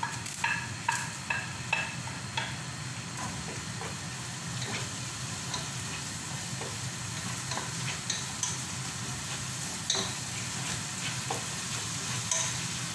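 Sliced onions sizzling as they fry in hot oil in a pot, stirred with a wooden spatula. The spatula scrapes and knocks lightly against the pot: several clicks in the first couple of seconds, and a few more later on.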